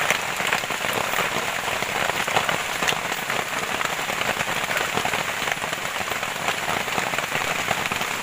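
Heavy rain falling steadily, a dense, even hiss of many drops.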